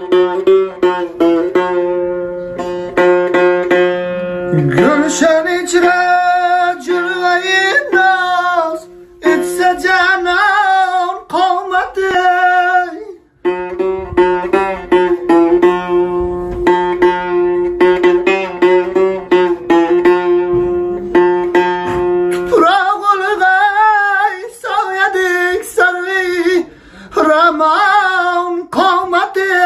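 A man's voice singing a mourning song with a wavering vibrato, over a long-necked lute that is strummed and holds a steady low drone. The singing breaks off briefly a few times.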